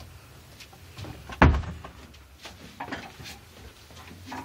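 A single heavy thump about one and a half seconds in, like a door or hatch knocking shut, followed by a few lighter knocks and handling rustle, over a low steady hum.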